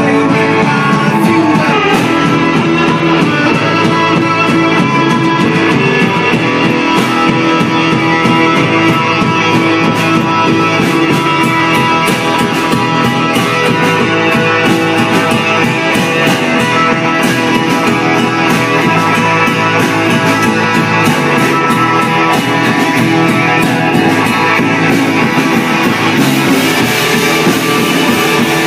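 Rock band playing: electric guitars over a steady drum kit beat.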